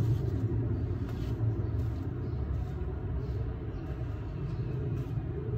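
Steady low background rumble, with no distinct events.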